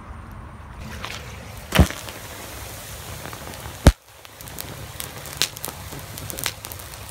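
Sodium metal reacting with water inside a plastic bottle and exploding: two sharp bangs about two seconds apart, the second the louder, followed by scattered small pops as the burning sodium pieces flare.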